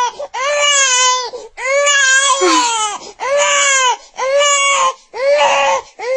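A baby crying in a string of about six loud, high-pitched wails, each about a second long or less, with short breaks between them.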